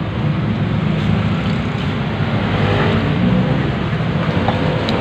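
Steady noise of road traffic.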